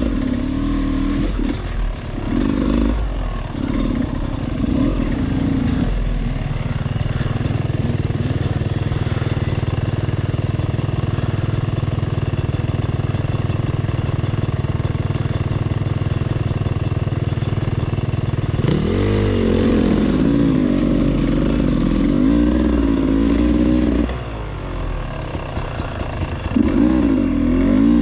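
Dirt bike engine on a rough trail. For the first few seconds the throttle is blipped in short bursts, then the engine holds a steady lower drone for about twelve seconds, then it revs up again with the pitch wobbling up and down. Light clatter from the bike over rocks and roots runs under it.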